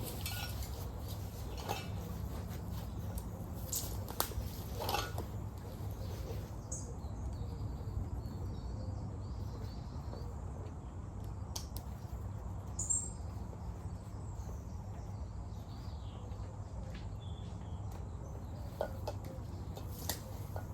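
Camping gear being packed away: scattered clinks and knocks of cookware and kit over a steady low rumble, with faint birdsong in the background.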